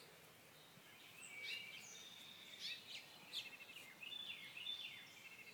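Faint birds chirping outdoors: a string of short, high chirps, several sweeping quickly downward, with a few brief held whistles in between, over a low steady hiss.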